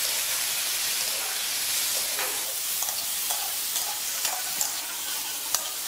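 Whole raw shrimp sizzling with fried garlic in a hot metal wok, a steady frying hiss, while a metal spatula stirs them with several short scrapes and clicks against the pan.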